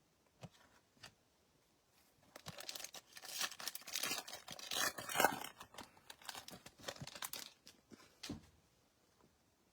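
Foil trading-card pack wrapper being torn open and crinkled, a few seconds of tearing and rustling, ending with a single light tap.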